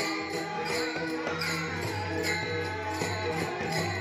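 Many pairs of small brass hand cymbals (Warkari taal) clashing together in a steady rhythm, about two strikes a second, over a sustained low drone, as accompaniment to a devotional bhajan.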